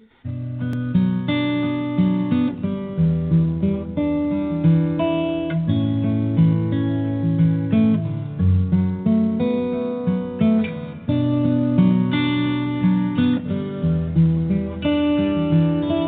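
Acoustic guitar instrumental music, plucked and strummed in a steady rhythm, starting abruptly just after the beginning.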